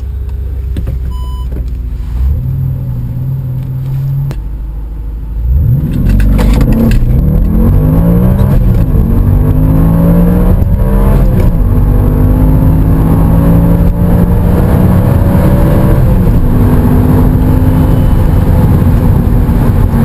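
Audi RS4 B7's 4.2-litre FSI V8 idling, its revs raised and held briefly, then launched hard about five and a half seconds in. The engine note climbs steeply and drops back at each upshift as the car accelerates through the gears, heard from inside the cabin.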